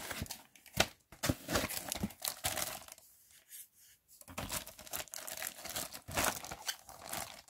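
Plastic wrapping crinkling and rustling as a boxed DVR is lifted out of its foam packing and handled, in irregular strokes with a short lull about three seconds in.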